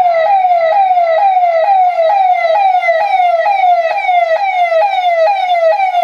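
Electronic police-style siren horn (hooter), driven by an amplifier, sounding a fast repeating pattern: a loud tone that sweeps quickly down in pitch and jumps back up, a bit more than twice a second.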